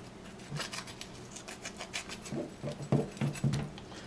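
Knife scraping and cutting at a leatherback fish's skin: a quick run of short, scratchy strokes, then a few duller knocks about three seconds in.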